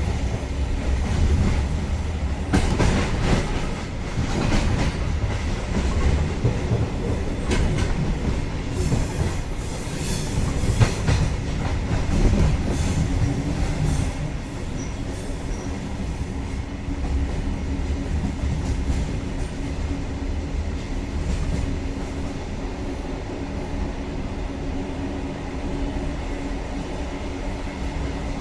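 InterCity train rolling out at low speed with a steady low rumble. Its wheels click over rail joints and switches, most often in the first half, with some high squeal from the wheels.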